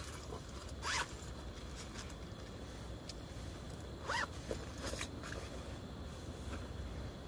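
A zipper on a small bag being pulled, twice in short rising zips, about a second in and again about four seconds in, with a few small handling clicks over a low steady hum.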